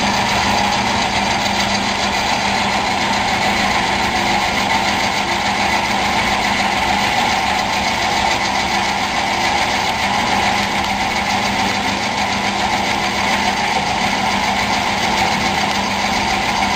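Rice and corn puffed-snack extruder running steadily under load, its motor and screw giving a constant drone with a steady low hum while it pushes out a puffed snack rope.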